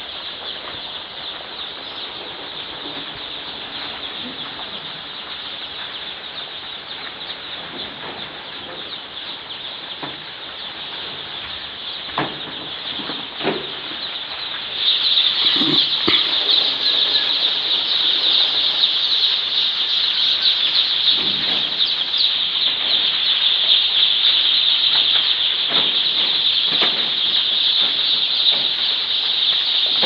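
A large flock of day-old chicks peeping all at once, a dense high-pitched chorus that gets louder about halfway through. A few short knocks sound in the middle.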